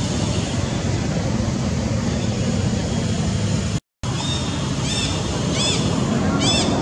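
Steady low rumbling background noise. It drops out to silence for a moment just before the four-second mark. After the break, a high, arched chirping call repeats about every three-quarters of a second, three times.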